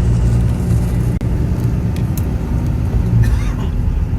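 Motor vehicle engine running with a steady low hum, with a brief dip about a second in.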